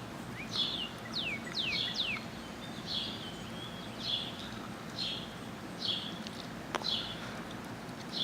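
A bird calling over and over, a short downward chirp about once a second, with a few quicker, sharper falling notes about one to two seconds in. A single sharp click sounds near seven seconds.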